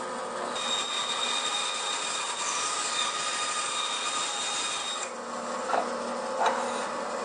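Bandsaw running steadily while its blade crosscuts a piece of timber fed on a mitre gauge, with no dust extractor running. The cutting sound fills the first five seconds or so, then the saw runs on with two short clicks near the end.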